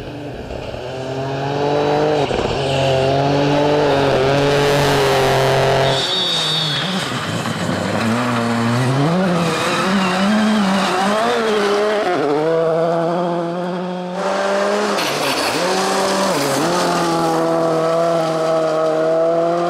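Rally cars at full throttle on gravel: engines revving hard and dropping back through gear changes and lifts, with tyres and gravel being thrown. Three cars in turn, the sound changing abruptly about six seconds in and again about fourteen seconds in, the middle one a Citroën C3 Rally2 sliding through a corner.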